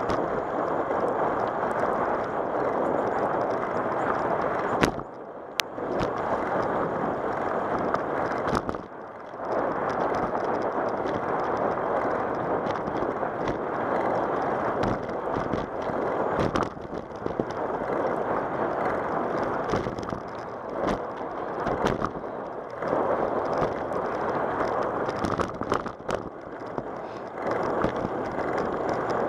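Rolling noise of a bicycle on a cracked asphalt path, heard from a camera mounted on the bike: a steady rough hiss with sharp knocks here and there as the tyres hit cracks and bumps. The noise drops briefly twice, about five and nine seconds in.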